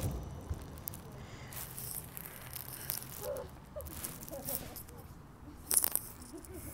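Siemens low-floor tram moving away along a turning loop, its low rumble fading, with small rattles and a sharp click about six seconds in.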